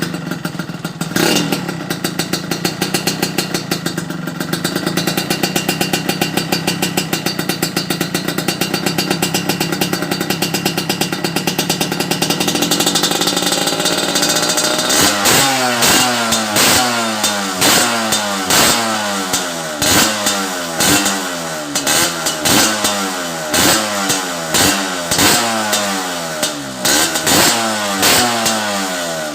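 Liquid-cooled motorcycle engine running through an aftermarket RF Pipe AR-80 "S"-type high-mount exhaust. It idles steadily for about half the time, its speed creeping up a little, then is revved in quick throttle blips roughly once a second, each rev rising and dropping straight back.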